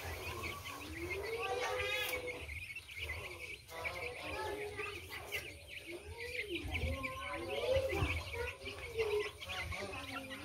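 A flock of young chickens peeping and calling as they feed: a steady chorus of high chirps, with many lower rising-and-falling calls.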